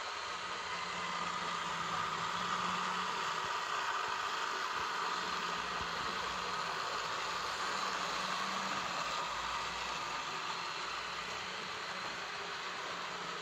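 Model trains running on the layout: a steady whirr of small electric motors and wheels rolling on the track, with a faint wavering hum.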